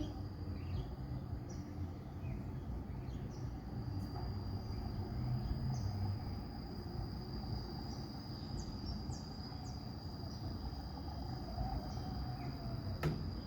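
Outdoor background noise: a low steady rumble, with a thin, high, unbroken insect trill that comes in about four seconds in. There is a single sharp click near the end.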